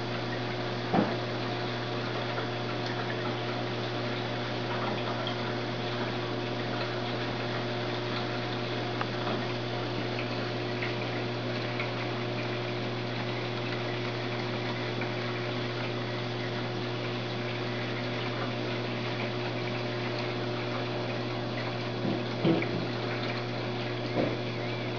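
Reef aquarium's circulation pump and moving water: a steady hum with an even wash of water noise. A few short knocks come through, one about a second in and two near the end.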